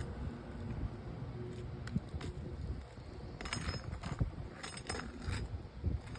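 Metal hand tools clinking and scraping in scattered short bursts, busiest from about three and a half seconds in, over a low rumble.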